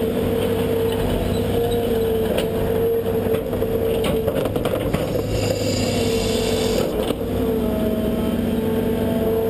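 Hydraulic excavator's diesel engine running steadily under load with a constant whine, as the toothed bucket digs into sandy soil; a few knocks and some scraping in the middle.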